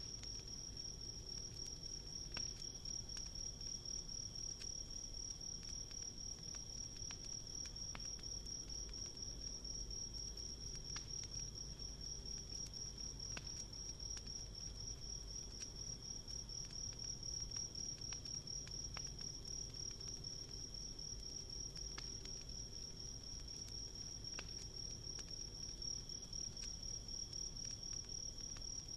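Crickets trilling in one steady, high, unbroken chorus, with a fainter second insect tone beneath it. A wood campfire crackles underneath, giving an irregular sharp pop every second or two and a low even rumble.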